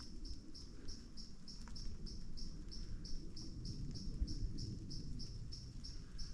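A cricket chirping steadily, short high chirps evenly spaced at about four a second, over a low rumble.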